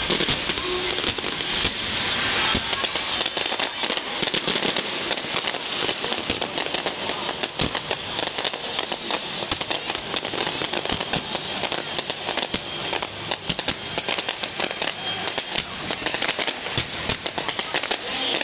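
Fireworks display going off continuously: many firework bursts and crackles overlapping in a dense run of sharp pops.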